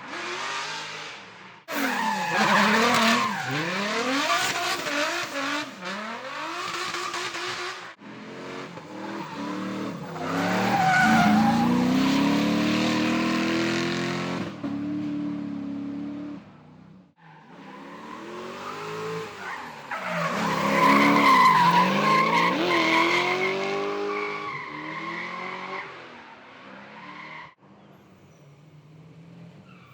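Drift cars' engines revving hard, their pitch sweeping up and down as the throttle is worked, with tires squealing and skidding through the slides. The sound breaks off and starts again abruptly several times.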